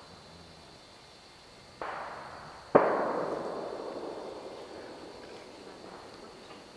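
Two sharp bangs about a second apart, the second louder, each trailing off in a long echo that fades over about three seconds.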